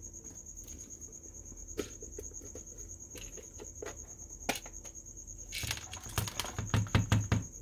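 Plastic housing of a soldering station being pulled apart by hand: a few separate clicks, then a quick run of knocks and rattles as the case halves come open near the end. A steady, high-pitched chirring trill runs behind it.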